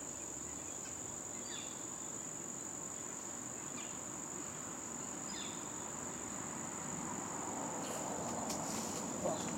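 Crickets trilling: one continuous, steady, high-pitched drone, with a few faint short chirps now and then.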